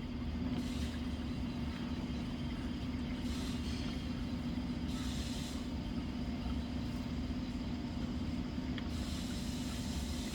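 A steady low rumble with a constant droning hum, broken by a few brief hissy rustles.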